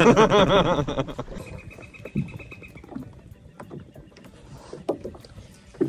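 A person's wavering, drawn-out vocal sound without words, fading out after about a second. Then low background with a few faint clicks.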